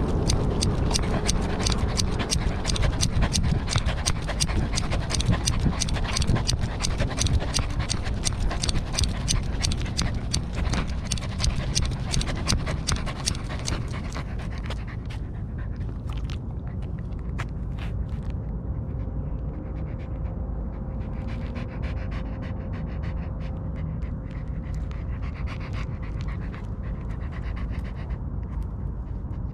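A corgi panting, heard very close up through a GoPro on its collar: quick, rhythmic breaths for about the first half, easing off to quieter, sparser panting after the middle.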